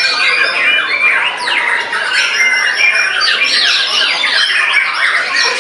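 Several white-rumped shamas (murai batu) singing at once in competition, fast rising and falling whistled phrases overlapping without a break.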